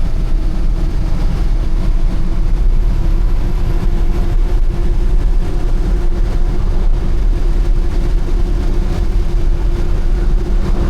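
Dump truck running steadily on the road: a constant low engine drone and road noise with a steady hum over it.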